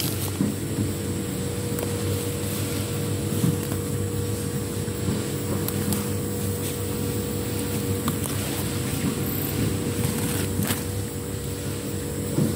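A steady, low engine-like hum with an even mid-pitched tone running through it, and a few light clicks.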